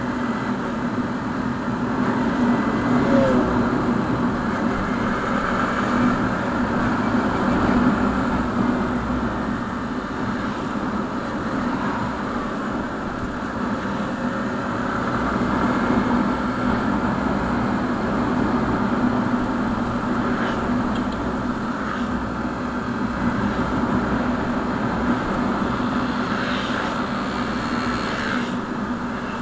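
Motorcycle engine running steadily at cruising speed, heard from on board over a low wind rumble, its level swelling and easing every few seconds through the curves.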